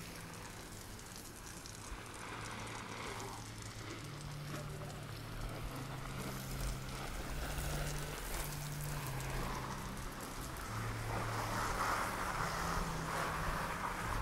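Street ambience heard while walking: a steady wash of noise that grows louder over the last few seconds, under a low hum that steps between a few pitches.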